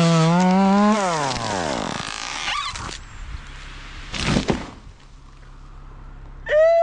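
Chainsaw engine running at high revs with a wavering pitch, then winding down, its pitch falling away until it dies out about two seconds in. A short rasping burst follows near the middle.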